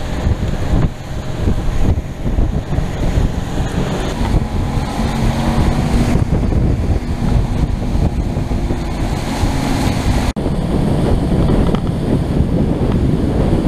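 Gale-force wind buffeting the microphone over rushing waves, spray and the boat's wake, with a small boat's Evinrude outboard motor running underneath. The sound drops out for an instant about ten seconds in.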